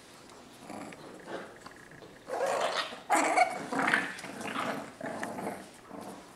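English bulldog puppies play-growling and barking while they wrestle: a run of short, loud calls starting about two seconds in.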